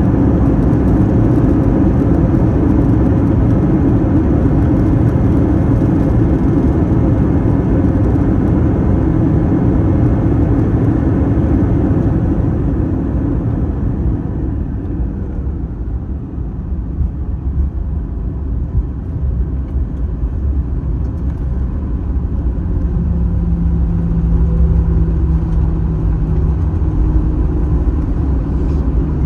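Airbus A321 cabin noise on landing: loud engine and rolling rumble dies away between about 12 and 16 seconds in as the jet slows on the runway. A steadier, lower rumble follows, with a faint low hum coming in near the end.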